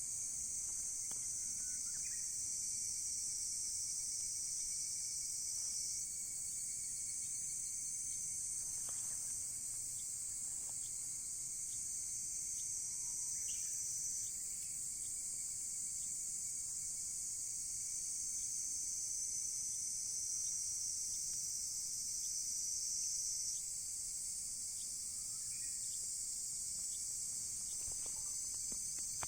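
Crickets chirring in a dense, steady, high-pitched chorus, with a few faint ticks scattered through it.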